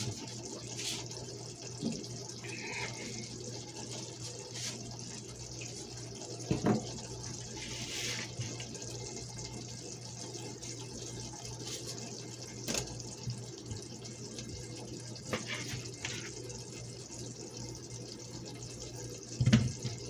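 Steady watery hiss in the kitchen, with a low steady hum under it and a few short knocks of kitchenware, the loudest near the end.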